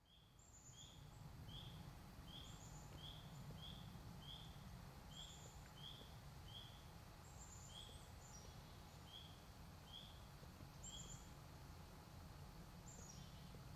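Faint woodland birdsong: a bird repeats a short call a bit more than once a second for about eleven seconds, with thin, higher calls from other birds now and then, over a low steady rumble.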